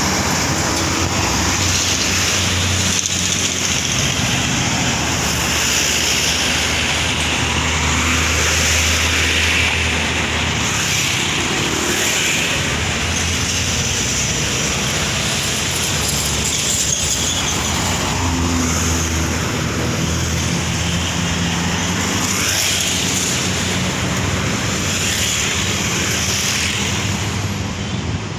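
Road traffic: vehicles running past with a steady mix of engine and tyre noise and a low engine hum that rises and fades as they pass.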